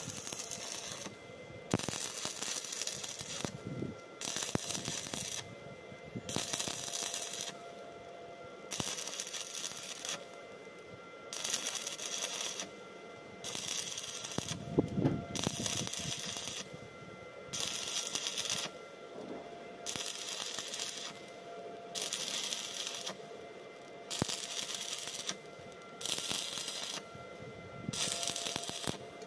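Stick welding arc crackling and sizzling as a flexible exhaust pipe section is welded onto steel exhaust pipe. The arc runs in bursts of about a second, broken and struck again roughly every one and a half seconds, giving a stop-start rhythm of about twenty bursts.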